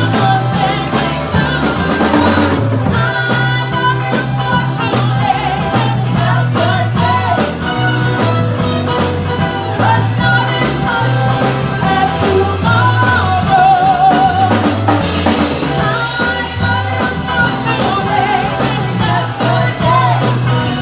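Live band playing a pop-rock song: drum kit keeping a steady beat over a moving bass line, with a wavering lead melody on top.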